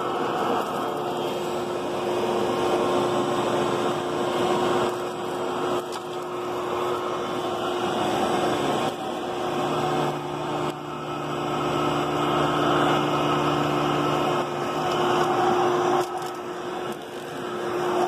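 Upright vacuum cleaner running steadily while pushed back and forth over carpet, with a constant motor hum; a lower hum joins in for a few seconds around the middle.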